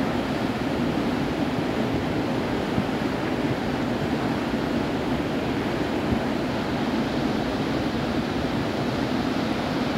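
The Mandakini river in flood after heavy rain, its muddy torrent rushing steadily over boulders.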